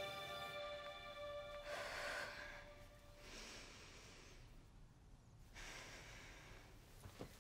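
A held synth-like music chord fades out in the first couple of seconds. Then come three slow, quiet breaths from a girl standing still.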